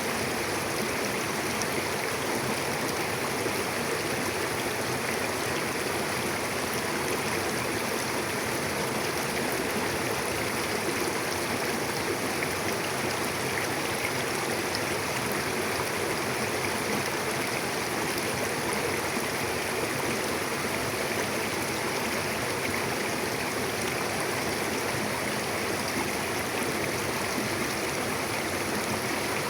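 Mountain river flowing: a steady, even rush of water over rocks.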